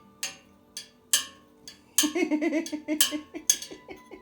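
Hard objects clinking and knocking together in a run of sharp, separate hits, the loudest about a second in. There is a short wavering, chattering vocal sound about two seconds in.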